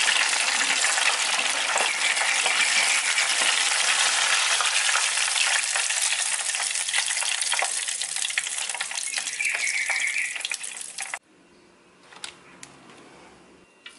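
Chicken pieces deep-frying in a pan of hot oil: a loud, steady sizzle with crackling that eases a little, then cuts off suddenly about eleven seconds in. A few faint clicks follow.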